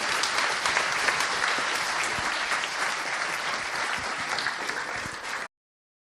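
Audience applauding in a lecture hall, the clapping cut off abruptly near the end.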